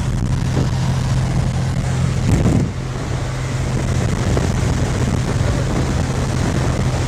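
Steady engine drone heard from inside a vehicle, with a brief louder swell about two and a half seconds in.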